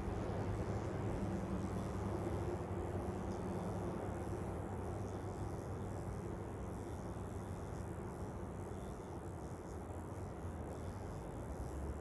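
Steady riverside ambience: an even rushing noise with no distinct events.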